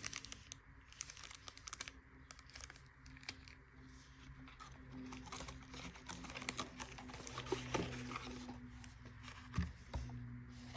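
Faint rustling and crinkling of card-game packaging being handled, with scattered small clicks and taps, busiest in the middle.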